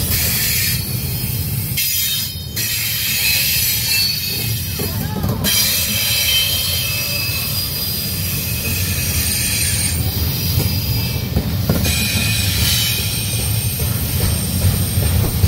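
Double-stack intermodal freight cars rolling past: a steady, loud rumble of steel wheels on rail, with thin high-pitched wheel squeal running over it.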